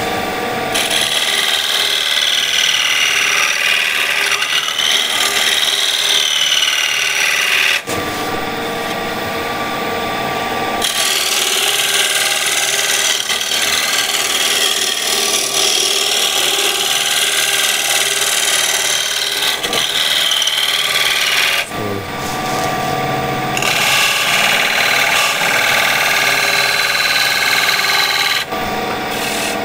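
Woodturning scraper cutting a spinning cherry bowl on the lathe, a steady scraping hiss as the curve is smoothed. The cut comes in three long passes, easing off briefly about 8 seconds in and again about 22 seconds in, as the tool is lifted between passes.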